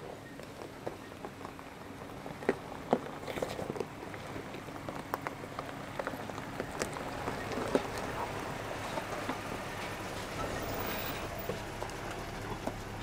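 Chevy Silverado pickup crawling over a rocky dirt trail: tyres crunching and popping loose stones and gravel, over the engine's low, steady running. It grows slowly louder as the truck comes up close.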